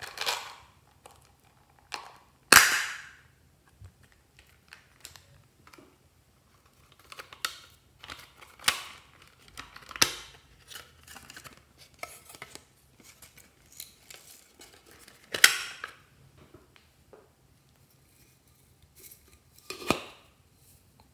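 Plastic toy containers being handled and snapped open: a series of sharp plastic clicks and pops, loudest about two and a half seconds in and again near the middle, with quieter tapping and rustling between.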